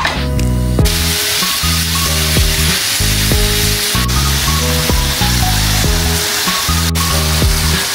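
Food sizzling as it fries in a pan, a steady hiss that starts suddenly about a second in, under background music with a steady melody.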